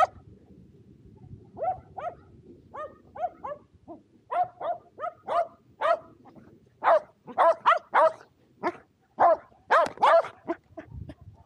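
Shetland sheepdog barking excitedly at the frisbee it is waiting for: a run of short, sharp barks that grow louder and faster, then stop shortly before the end.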